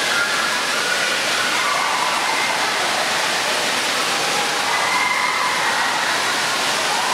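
Steady rush of falling and splashing water in an indoor water park, from slide outflows and pools, with faint voices in the background.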